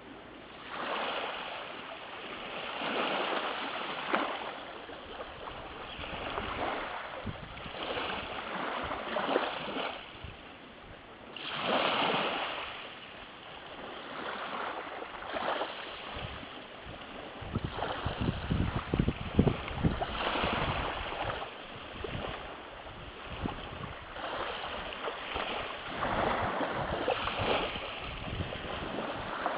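Small waves lapping and washing up onto a shelly beach, a soft rush of water that swells and falls back every two or three seconds. A stretch of low rumble runs under the waves about two-thirds of the way through.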